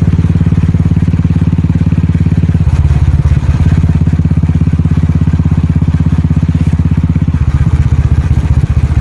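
Royal Enfield Classic 350's single-cylinder engine running through an aftermarket Wild Boar exhaust: a loud, steady beat of exhaust pulses. The note drops lower about two and a half seconds in and changes again near the end.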